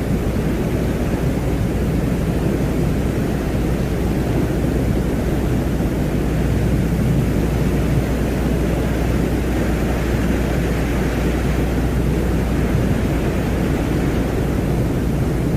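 Steady, dense rumbling noise, heaviest in the low range with a fainter hiss above it, with no breaks or separate events. It is an ambient soundscape presented as the sound of the planet Venus.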